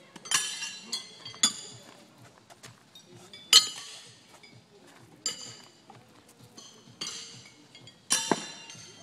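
Steel pitching horseshoes clanging against the steel stakes and against each other in horseshoe pitching. About six sharp, ringing metallic clanks come at irregular intervals, the loudest about three and a half seconds in.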